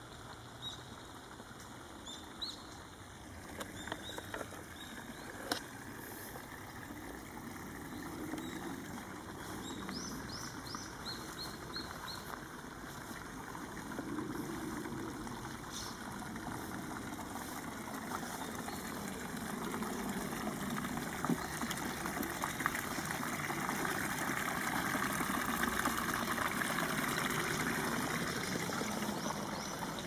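Water trickling and flowing in a small, shallow stream channel, growing louder in the second half, with a few short bird chirps in the first half.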